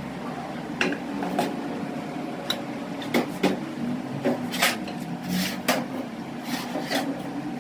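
Scattered clinks, knocks and scrapes of metal parts and tools being handled during transmission work, over a steady low hum.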